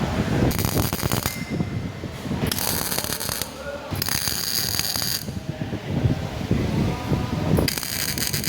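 Car-body welding in four separate bursts of about a second each, each one a loud crackling hiss, with a rough low crackle between them.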